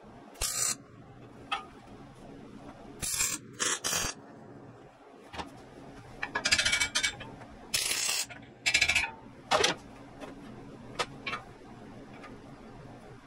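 MIG welder tack-welding steel: a series of brief arc bursts, about eight of them, each under a second, over a steady low hum. These are tack welds holding the stiff-leg feet in place before full welding.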